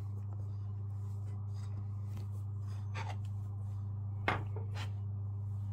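Hands rubbing butter into flour in a glass mixing bowl, with a few soft knocks against the glass, the sharpest a little past four seconds in, over a steady low hum.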